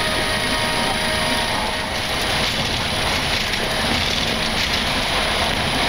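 Boeing 737 flight-deck noise during the takeoff roll: the engines at takeoff thrust and the rush of the airliner accelerating down the runway, a steady, even roar with no break.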